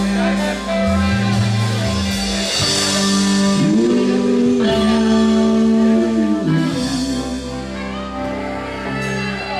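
Live rock band playing: electric guitars, bass and drums with a saxophone, a sustained lead note bending up near the middle, held, then falling away.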